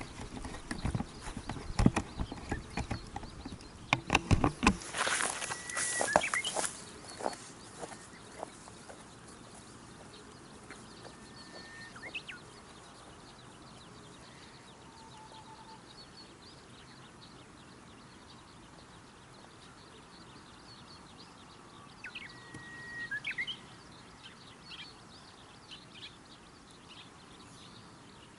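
Footsteps, rustling and knocks in cut grass close to the microphone for the first few seconds, then dying away as the walker moves off. After that a quiet open-air background with two short whistled calls.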